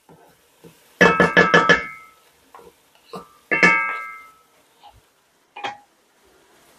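Wooden spatulas knocked against the rim of an aluminium cooking pot, making the pot ring with a bright clang. There is a quick run of five knocks about a second in, one more knock a little past the middle, and a few light taps.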